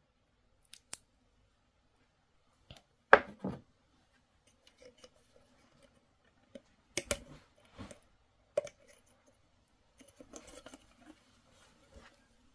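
Sharp clicks, knocks and small scrapes of a Zippo lighter and its plastic case being handled and opened for refuelling, with the loudest knocks about three seconds in and again about seven seconds in, and a stretch of light rustling near the end.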